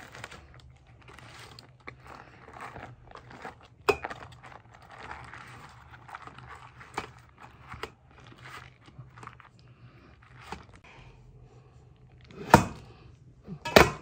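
Crunching and scraping of food being cut and worked by hand, with scattered small clicks. Two loud sharp knocks come near the end, about a second apart.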